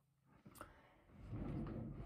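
Near silence: room tone, with a faint click about half a second in, then a low rumble starting after about a second.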